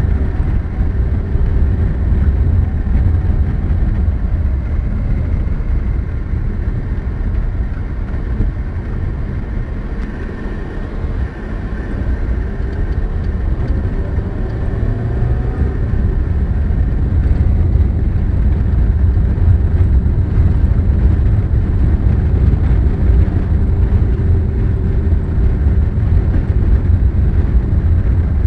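Steady low rumble of a car driving on a rough, unpaved dirt road, heard from inside the cabin: tyre and road noise mixed with the engine. A faint rising tone comes in about halfway through.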